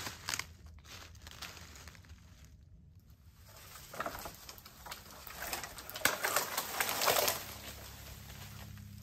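Dry brush and dead branches crunching and crackling in irregular bursts as someone pushes and moves through them, loudest a little past the middle.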